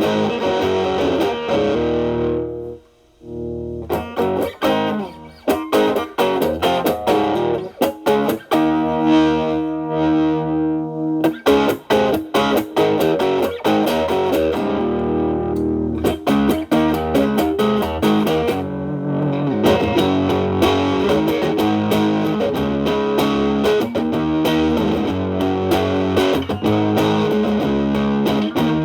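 Electric guitar, a Telecaster with single-coil alnico pickups, played through a stacked MXR Distortion+ and Boss SD-1 overdrive into a Marshall Valvestate amp's clean channel, in a cleaned-up drive setting. Single-note lines and chords, with a brief pause about 3 s in.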